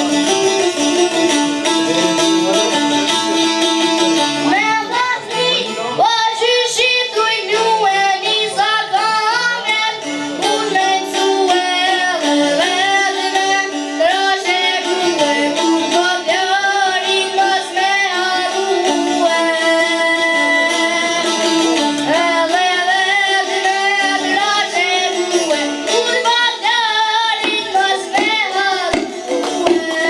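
A young boy singing an Albanian folk song in a high voice with wavering, ornamented lines, accompanied by two çifteli (long-necked two-string lutes). The lutes play alone at first, and the voice comes in about four seconds in.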